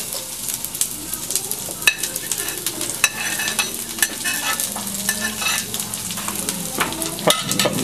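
Food frying hard in oil in a pan over a wood fire, a steady sizzle with frequent sharp scrapes and clicks of a utensil stirring against the pan. The pan is running too hot: it is starting to burn on one side because the fire is too big.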